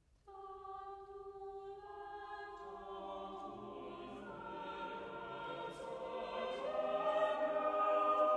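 Choral music of long held notes: one voice enters, others join in layers about two and three seconds in, and it swells louder near the end.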